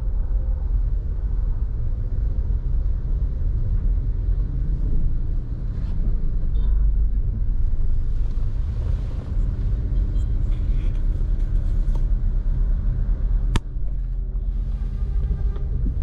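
Road noise from a vehicle driving through city traffic: a steady low rumble of engine and tyres, with one sharp click a couple of seconds before the end.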